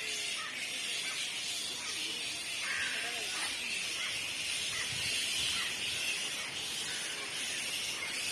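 Bats squeaking and chittering, many short high chirps that bend up and down in pitch, scattered irregularly over a steady hiss.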